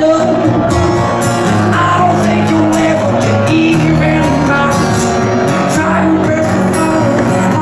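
Live band music: a male singer singing at the microphone over acoustic guitar and a steady bass, loud and continuous.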